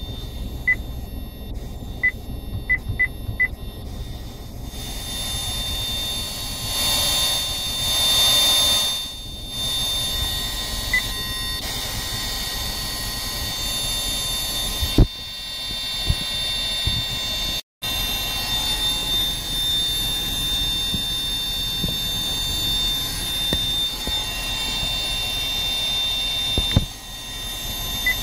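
Steady high-pitched whistle from a new KIA Sportage's factory multimedia head unit during CD playback, a fault of the unit, over the low rumble of the car. There are a few short beeps in the first few seconds.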